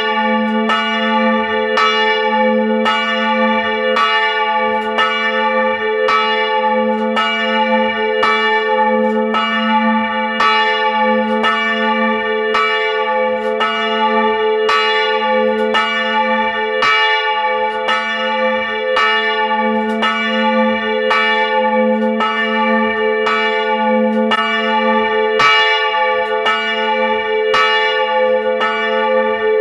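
Two swinging bronze church bells, of about 450 kg and 380 kg, rung by hand ropes in a steady two-bell peal. Their clappers strike about three times every two seconds, and the bells ring on in a continuous hum between strokes, heard close up inside the belfry.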